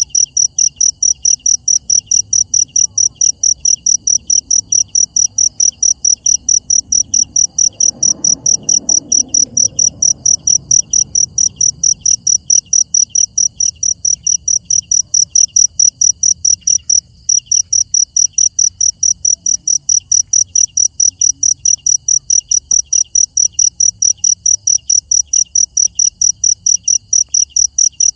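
Night insects chirping: one loud, high-pitched insect pulsing in a fast, even rhythm of about three chirps a second, with a fainter, lower-pitched second insect chirping in its own rhythm behind it. The loud chirping breaks off for an instant about two-thirds of the way through.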